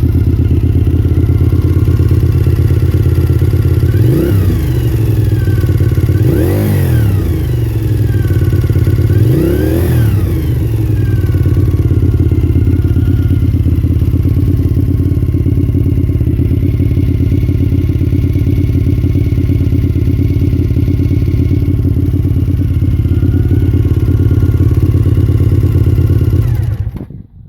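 2001 Suzuki TL1000S's 90-degree V-twin engine idling, with three quick revs of the throttle in the first ten seconds that rise and fall back to idle. It then idles steadily and cuts off near the end.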